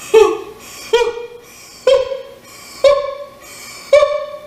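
A singer's voice doing a breath-support exercise: five short, breathy staccato 'ha' notes about a second apart, each a step higher than the last, each pushed out from the lower abdomen.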